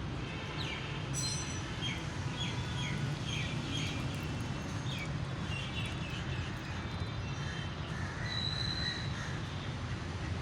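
Several birds calling with many short chirps and caws.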